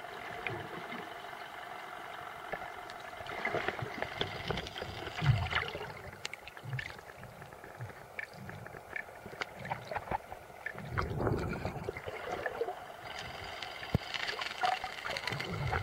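Muffled water movement and bubbling heard from a camera underwater, with many scattered clicks and crackles and a few louder bubbly swells.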